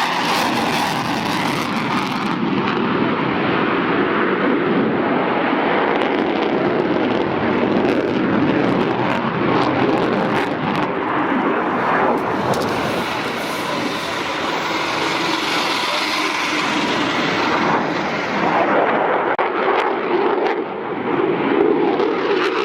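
Twin jet engines of an F-14 Tomcat at full power, a loud continuous rush of jet noise from the aircraft flying around the show area after a go-around.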